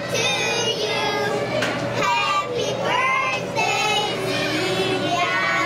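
A group of young children singing a birthday song together.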